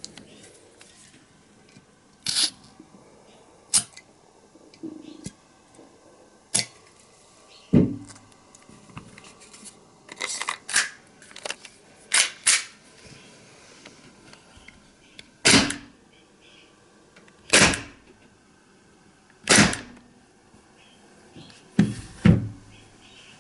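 Gas-powered airsoft gun firing single shots: about a dozen sharp cracks at uneven intervals, some in quick pairs.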